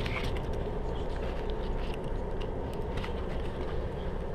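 Steady road and engine rumble inside a moving car's cabin, with a few faint clicks as a DSLR camera is handled.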